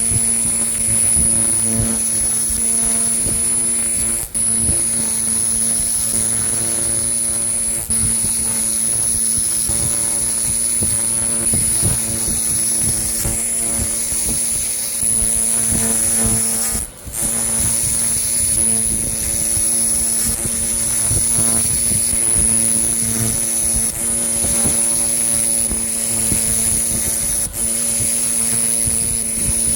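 300-watt pulsed laser cleaner running a cross swing pattern, ablating rust from a metal bell: a steady high-pitched whine over a low hum and a rough hiss. It breaks off briefly four times.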